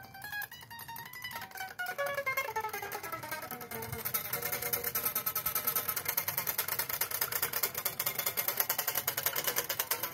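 Flying V-style electric guitar being played: a run of single picked notes stepping downward, then fast, steady repeated picking from about four seconds in.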